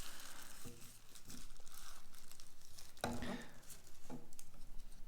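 Plastic packaging crinkling and rustling as a small USB humidifier is picked up and handled, with a couple of light knocks about three and four seconds in.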